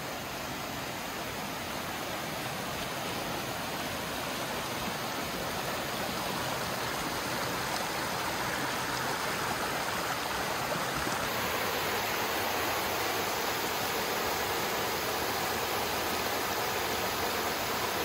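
Waterfall and cascading creek water rushing steadily over rock, growing gradually louder.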